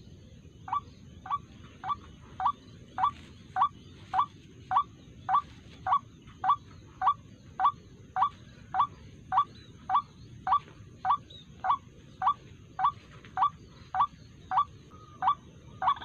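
White-breasted waterhen (ruak-ruak) call: a short rising "kruak" note repeated steadily, nearly twice a second. It starts about a second in, with the first few notes softer.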